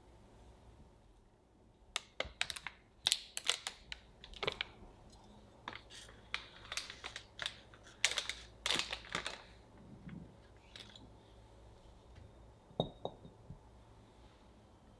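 A foil-wrapped block of butter is cut with a plastic knife on a wooden board: several seconds of sharp clicks and foil crinkles. Later, pieces of butter are set into a glass bowl with a couple of light knocks.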